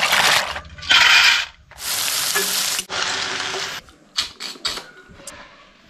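Handfuls of freshwater snails being washed in a basin of water: shells clattering together with sloshing, in several bursts of rattling. Near the end come a few short soft clicks as cooked snails are sucked from their shells.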